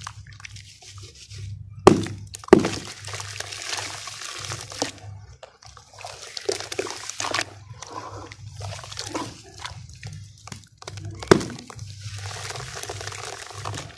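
Hands squeezing and crumbling soaked red dirt lumps in a plastic basin of water: wet mud squelching, water sloshing and dripping as clumps fall back in. Sharp knocks twice about two seconds in and once more later on.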